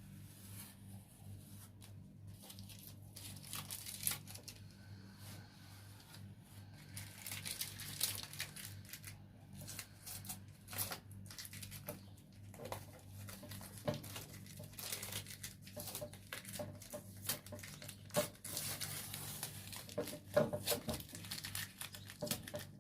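Irregular scraping, crinkling and clicking from hand work, busier from about seven seconds in, over a steady low hum.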